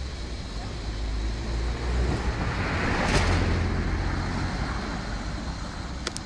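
Road traffic: a vehicle passing on the street alongside, its noise swelling to a peak about three seconds in and then fading, over a steady low rumble.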